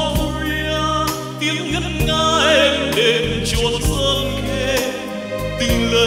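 A male voice sings a slow Vietnamese Buddhist song with vibrato over a steady instrumental backing track.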